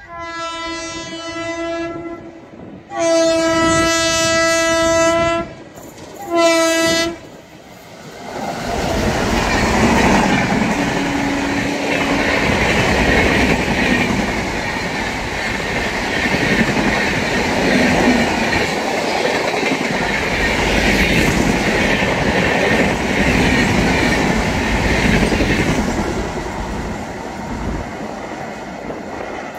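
Locomotive air horn sounding three times: a long blast, a longer and louder one, then a short one. An Indian Railways passenger express follows, its coaches passing close with wheels clattering over the rail joints, the rumble easing off near the end as the last coaches move away.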